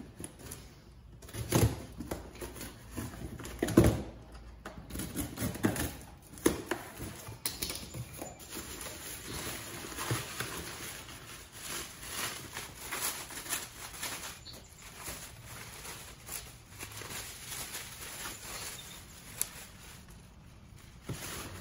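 A cardboard parts box and its packing being opened and handled by hand: irregular rustling and scraping with scattered clicks, and a couple of louder knocks in the first few seconds.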